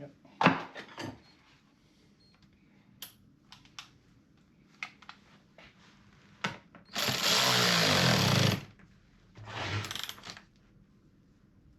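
Milwaukee M18 battery top-handle chainsaw, freshly fitted with a new chain, triggered briefly twice: a burst of about a second and a half whose whine rises as the motor spins up, then a second shorter burst. A few clicks and knocks of handling come first.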